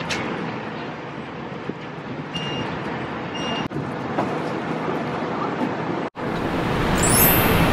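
Steady outdoor background noise like distant traffic. Two short electronic beeps come about two and a half seconds in, a second apart.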